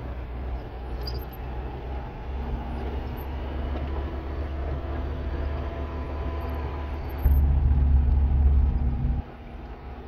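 Small truck's engine running and road rumble heard from inside the cab while driving. The low rumble grows much louder for about two seconds near the end, then drops back suddenly.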